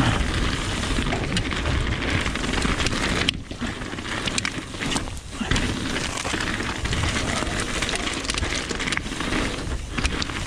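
Trek Remedy mountain bike descending a loose gravel trail at speed: tyres crunching and rattling over stones with the bike rattling, easing off briefly twice about a third and half way through.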